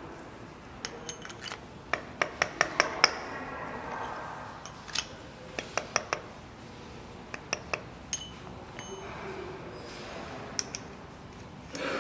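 Metal lathe gears clinking and tapping against each other as they are handled: groups of sharp metallic clicks, each with a short ring, coming in quick runs with pauses between.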